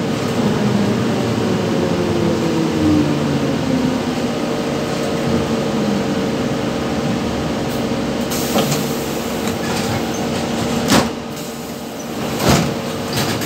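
Cabin noise of a ZiU-682G trolleybus under way: steady running noise with the electric traction motor's whine falling in pitch over the first few seconds. Two sharp clicks come near the end, a second and a half apart.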